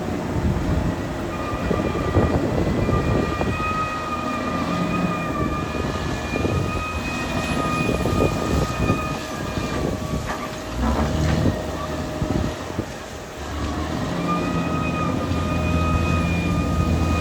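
Caterpillar D6R XL bulldozer working: its diesel engine runs steadily while the tracks clank. A high, wavering whine comes in about a second in, stops about ten seconds in, and returns near the end.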